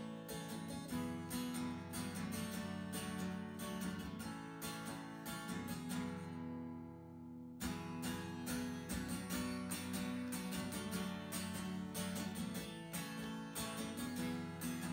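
Acoustic guitar strummed in a steady rhythm with no voice, as an instrumental break. About six seconds in, a chord is left to ring more softly for about a second and a half before the strumming picks up again.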